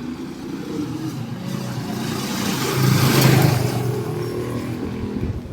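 A motor vehicle passing close by: its engine and road noise grow louder to a peak about three seconds in, then fade away.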